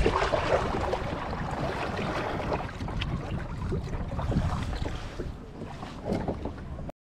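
Wind buffeting the microphone over water splashing and lapping as a sit-on-top kayak is paddled. The sound cuts off abruptly right at the end.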